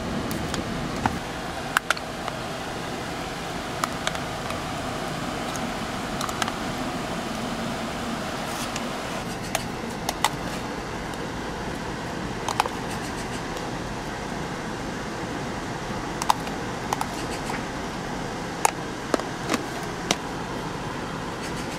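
A spoon tapping and clinking against plastic tubs and a ceramic bowl as fruit pieces are scooped onto shaved ice: about a dozen short, sharp taps, spread irregularly, over a steady machine hum.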